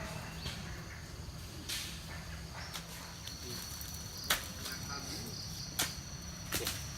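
An insect calling with a steady high-pitched buzz that starts about three seconds in, over a low steady rumble. Three sharp knocks come in the second half.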